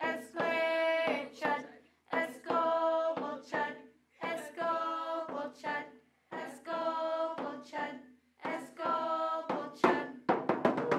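Voices singing a run of short phrases on held notes, each about a second and a half long, with sharp hits between them. About ten seconds in, the hits speed into a quick rapid run.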